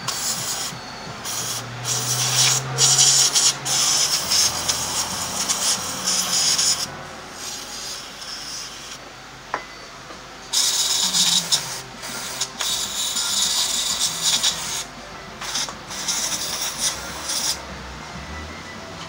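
Aerosol spray can with a straw nozzle hissing in two long spells of spraying, each broken by brief pauses, with a gap of a few seconds near the middle. It is spraying cleaner onto a scooter's rear brake disc and caliper.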